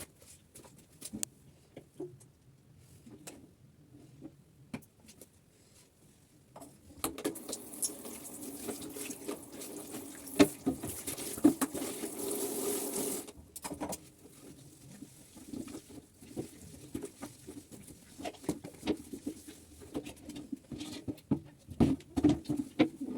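A water tap running for about six seconds and then shut off abruptly, among scattered clatter and knocks of things being handled and washed.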